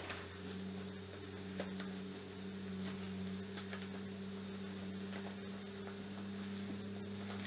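Steady low electrical hum, with faint rustles and light ticks of stretchy swimsuit fabric being handled and pulled right side out through a gap in the seam.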